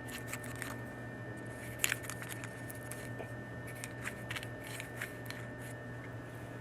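Scattered light clicks and taps of copper pipe and fittings being handled while flux is brushed on, the sharpest click about two seconds in.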